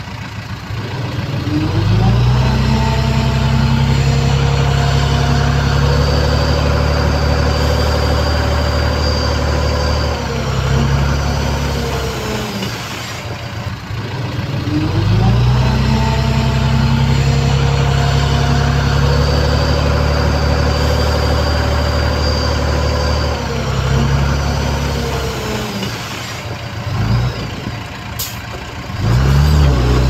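Bulldozer's heavy diesel engine revving up and holding at high revs under load for several seconds, then easing back. This happens twice, with a high whine over the engine while it works hard, and a short rev near the end.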